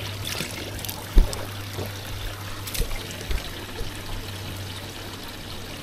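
Cold drinking water running and trickling steadily from an outlet. A sharp knock comes about a second in, with a few fainter knocks after it.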